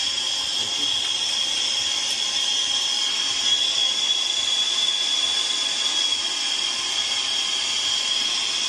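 Steady, loud hissing with a thin high whistle in it, holding even throughout.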